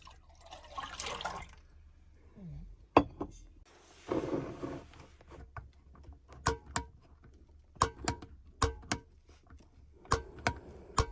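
Liquid poured into a pot with a short splash, followed by a run of irregular sharp clicks and knocks from kitchen items being handled.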